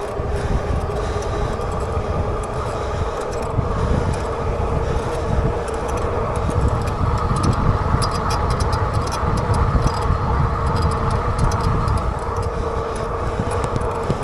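Rad Rover 6 Plus e-bike under way: a steady whine from its geared rear hub motor, with tyre noise and wind buffeting the microphone.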